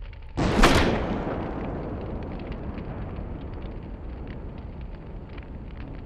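A single loud blast that dies away over about two seconds.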